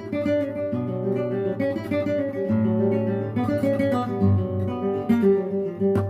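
Acoustic guitar music, plucked and strummed notes playing throughout.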